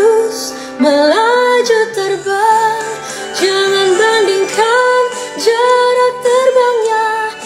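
Background song with a woman singing a melody over instrumental accompaniment.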